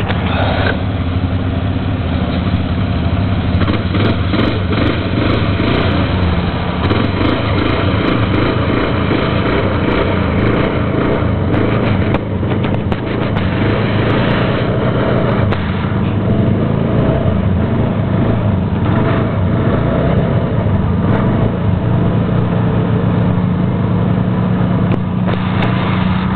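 ATV engine running steadily close by, a continuous low drone that shifts only a little in level.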